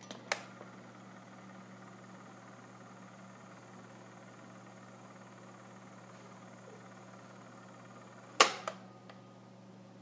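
Tone arm of a Philips AG 4000 portable record player swung by hand, with a sharp click just after the start and a louder double click about eight and a half seconds in as it is moved back. Between the two clicks there is a faint steady hiss, and a low steady hum runs underneath throughout.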